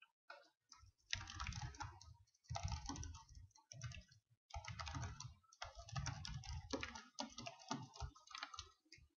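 Typing on a computer keyboard: runs of quick key clicks in several bursts, with short pauses between them.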